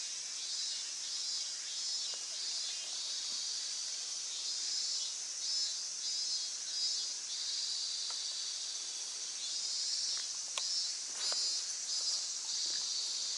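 A dense chorus of insects singing high and steady, with a slight pulsing, and a couple of faint clicks about ten to eleven seconds in.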